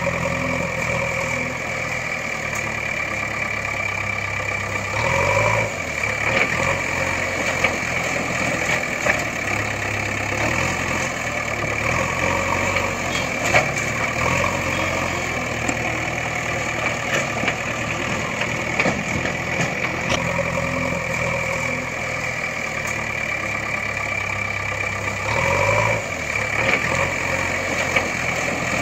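Engine idling steadily, like a heavy vehicle, with a brief swell about five seconds in that comes again the same way near the end.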